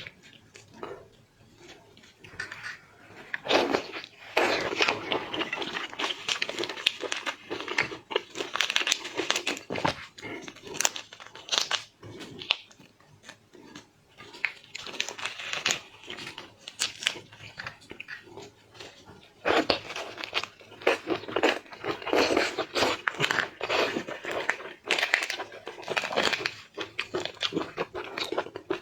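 Close-miked eating of seafood: crunching, biting and chewing with crackling and crinkling, in spells of several seconds broken by short quieter pauses.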